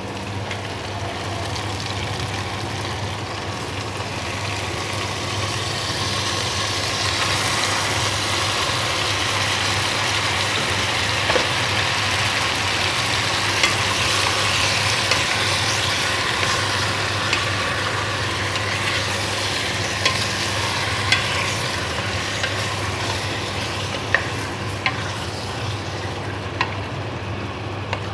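Chopped tomatoes and chicken sizzling in a hot pot as they are stirred with a spatula; the sizzle swells several seconds in and eases later. A few sharp taps of the spatula on the pot come near the end, over a steady low hum.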